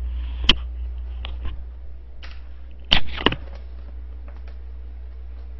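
Handling noise from a headset microphone being fiddled with and taken off: a sharp click, a few light knocks, and a louder short clatter about three seconds in, over a steady low hum.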